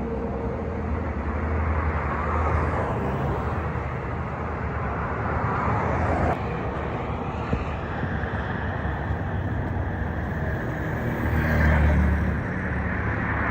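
Road traffic: motor vehicles driving past with a steady rush of tyre and engine noise, and a low engine hum that swells about two seconds in and again near the end as heavier vehicles pass.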